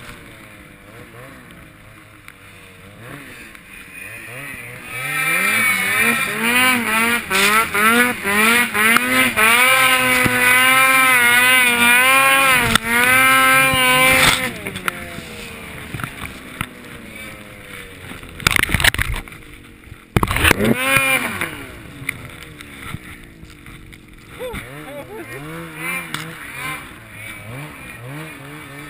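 Snowmobile engine revving hard in deep powder, its pitch rising and wavering for several seconds before dropping off and winding down. A few loud rushes of noise follow, then a few lighter bursts of throttle near the end.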